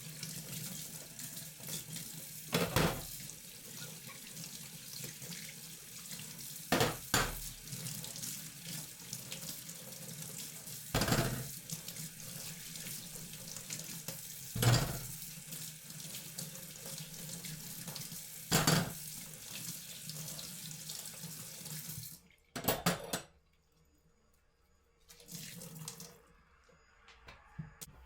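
Tap running steadily into a sink, with a sharp knock or clatter about every four seconds. The water shuts off abruptly about two-thirds of the way through, followed by a brief clatter and a few quieter handling sounds.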